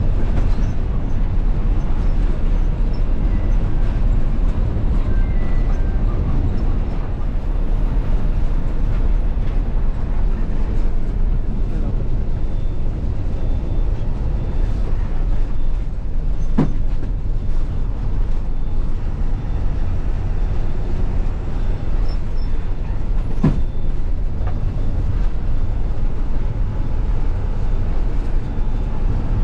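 A bus's engine and road noise heard inside the cabin while driving: a steady, loud, low rumble. Two sharp knocks come past the middle, about seven seconds apart.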